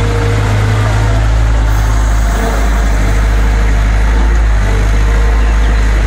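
Caterpillar M313C wheeled excavator's diesel engine running loud and steady as the machine digs and loads soil into a dump truck.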